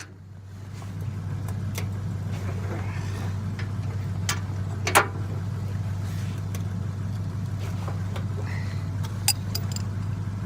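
Vehicle engine idling steadily, with a few sharp metal clinks from bolts and tools being handled.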